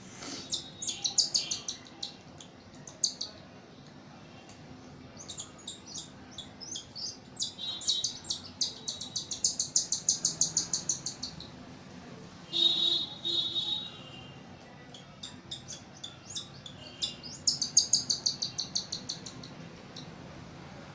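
Baby cockatiel chick giving its food-begging call while being hand-fed: rapid trains of high, repeated chirps in several bursts, the typical call of a hungry chick at feeding.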